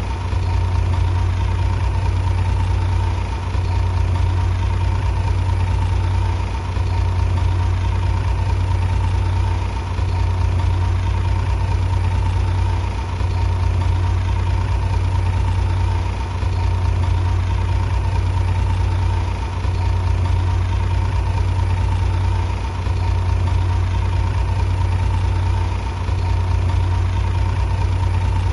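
Shantui bulldozer's heavy diesel engine running steadily, with a low drone and a steady higher tone, dipping briefly in level about every three seconds.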